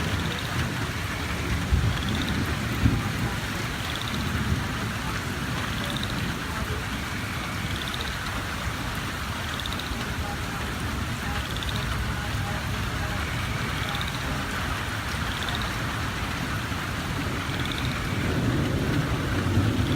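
Heavy rain pouring steadily during a thunderstorm, with low rumbling of thunder underneath. A faint high chirp repeats every couple of seconds.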